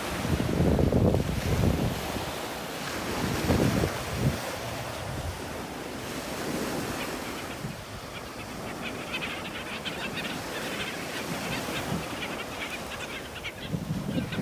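Wind buffeting the microphone over a steady rush of water, with the low gusts strongest in the first few seconds.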